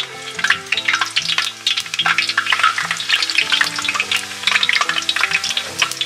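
Grated mango ginger sizzling in hot sesame oil in an uruli, with many small crackles throughout, as it is added a little at a time to be sautéed until it wilts.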